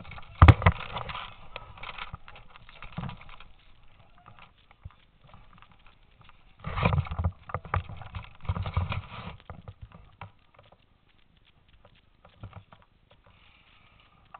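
Footsteps and rustling through tall grass and brush, with knocks from handling the camera. The noise comes in two bursts, the first with a sharp knock about half a second in and the second about seven seconds in, then fades to scattered light clicks.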